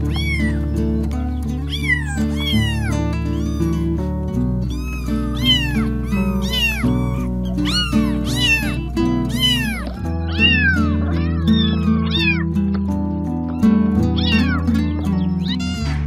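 Kitten meows repeated about once a second, each call rising then falling in pitch, over background music with sustained low notes.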